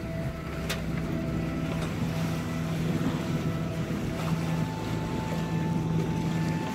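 Sailing catamaran motor-sailing on one engine: a steady engine hum under wind on the microphone and the rush of water along the hull. The engine note shifts slightly about two-thirds of the way in.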